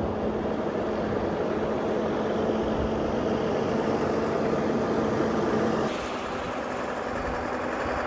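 Farm tractors driving past slowly in a convoy, their engines running steadily. The sound changes abruptly about six seconds in, becoming a little quieter.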